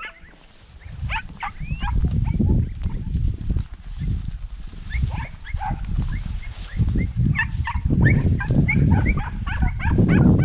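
A pack of podenco hounds giving tongue on a rabbit chase with many short, high yelps, a few early on and then thick and fast over the second half. Underneath is a steady low rumble.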